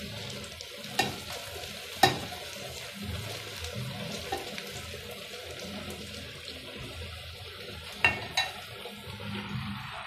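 Food being stirred in a metal cooking pot over a steady sizzle, with the spoon knocking sharply against the pot's side about a second in, again a second later, and twice near the end.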